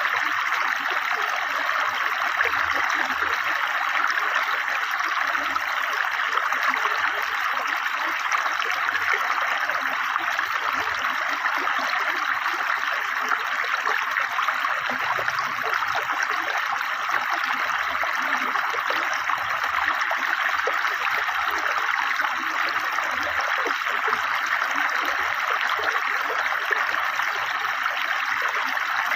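Fast-flowing river water, a steady rush of noise that holds even throughout.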